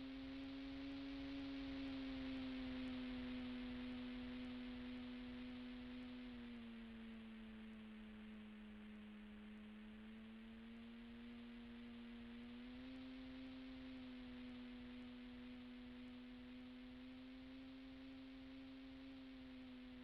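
Radio-controlled plane's motor and propeller, heard as a steady hum. Its pitch drops slightly about six seconds in and rises back about thirteen seconds in as the motor speed changes.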